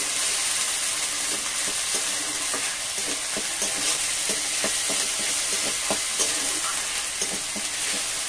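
Ginger-garlic and dried-chilli spice paste sizzling in hot oil in a steel kadai, with a metal spatula scraping the pan about two to three times a second as the masala is stir-fried.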